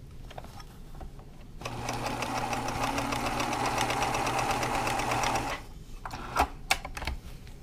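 Pfaff 1222E sewing machine running at a steady speed for about four seconds, sewing a blind hem stitch: a motor hum under a fast, even rhythm of needle strokes, starting after a short pause and then stopping. A few sharp clicks follow near the end.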